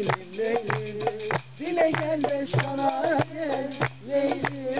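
A man singing a folk song while strumming a bağlama, a long-necked Turkish lute, whose sharp string strokes come several times a second under the voice.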